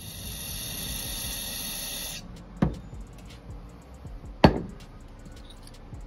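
Aerosol carburetor cleaner sprayed through its thin straw into a small-engine carburetor: a steady hiss for about two seconds that stops suddenly. Then two knocks, the second louder.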